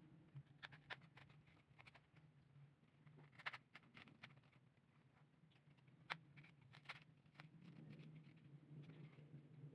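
Faint handling sounds of artificial flowers and paper: scattered soft clicks and rustles as the stems are pushed into place, over a low steady hum.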